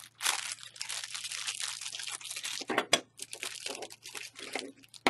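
Packaging crinkling and rustling as small parts are handled, with a couple of sharp clicks about three seconds in.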